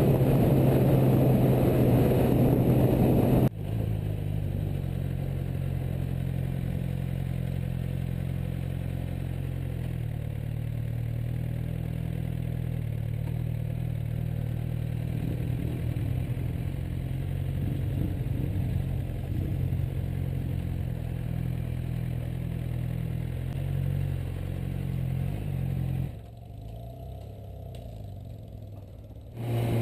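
Suzuki GSX-R600 inline-four engine. For the first few seconds the bike is ridden at speed with wind rush. The sound then cuts suddenly to a steady, quieter idle or low-speed running, and near the end it drops much quieter for a few seconds before the louder riding sound returns.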